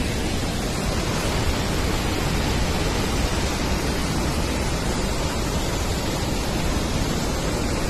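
Athirappilly waterfall's heavy monsoon flow rushing, a loud steady noise of falling water with no breaks.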